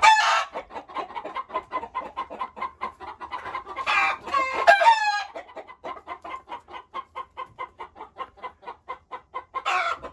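A flock of American Bresse chickens clucking in a fast steady patter. A rooster crows once, loud and brief, about four seconds in.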